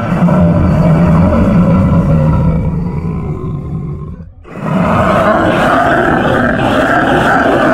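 Horror sound effect of a deep, monstrous roaring growl. It fades out a little past the middle, and after a brief gap a second loud roar starts and runs on.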